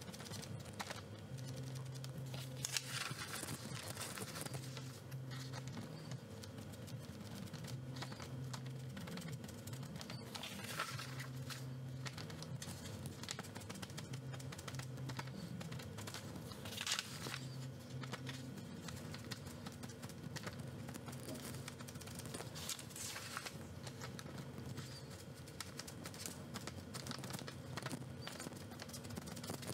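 Sponge ink dauber dabbing ink onto a paper cut-out: soft, irregular taps on paper, with a few louder paper rustles as the scrap masking sheet is shifted.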